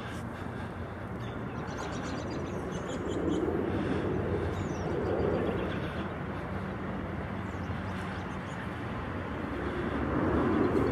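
Steady outdoor background rumble that swells a few seconds in, again around five seconds and near the end, with a few faint high bird chirps.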